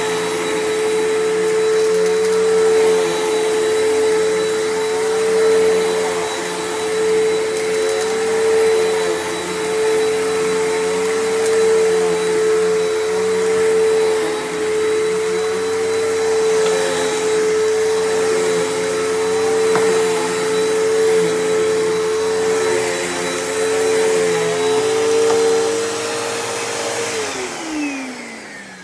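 Bissell PowerForce Helix Turbo upright vacuum cleaner running on carpet, its motor whine steady while the loudness swells and dips in slow waves. Near the end it is switched off and the whine falls in pitch as the motor spins down.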